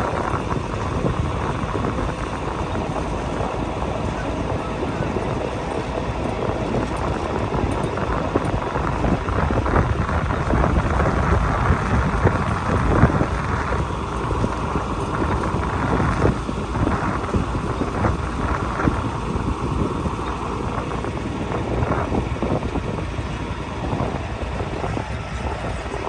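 Farm tractor running steadily as it tows a hay wagon across a field, with scattered knocks and rattles from the ride.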